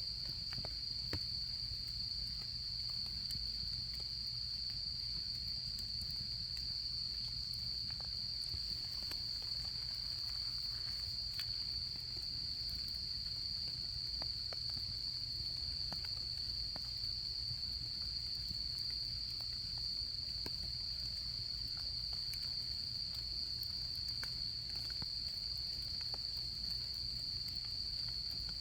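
A chorus of autumn crickets trilling in one steady, unbroken high note, with faint scattered crackles from a campfire.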